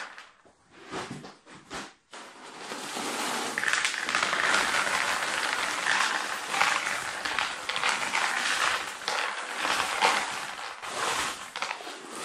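A few small stones clicking into a plastic tray, then from about two seconds in a continuous crackling rustle as a paper shopping bag is handled and tipped, with stones rattling and pouring into the plastic tray.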